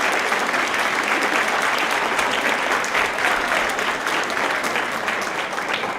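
Auditorium audience applauding, a dense steady clapping that begins to thin out near the end.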